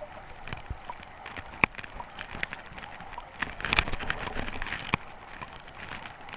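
Underwater crackling with many sharp clicks and ticks as a dense school of spawning eulachon (hooligan) jostles over the gravel bottom and against the camera. The clicks come thicker in a flurry a little past the middle.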